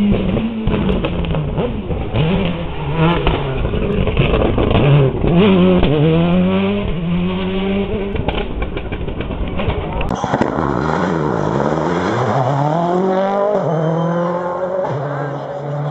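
Rally cars racing past at full throttle: engines rev up through the gears, lift off, and rev again in repeated rising and falling sweeps.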